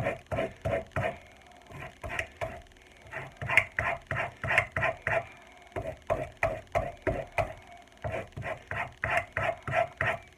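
Quick back-and-forth rubbing strokes across a rough-side-up leather strop, about three a second, each a short dry scrape.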